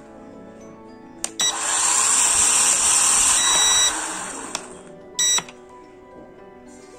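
Pioneer GD-118 camera drone's motors and propellers spinning up while held in the hand: a loud whine with a rush of air for about two and a half seconds, then winding down. A second short burst follows about five seconds in. Soft background music runs underneath.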